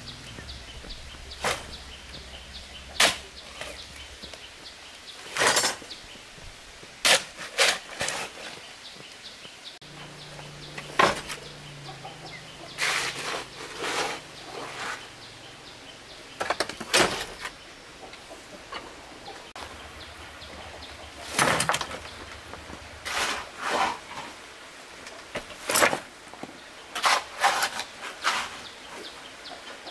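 Metal shovel scraping up wet concrete mix from a pile on the ground and tipping it out, in irregular strokes every second or two.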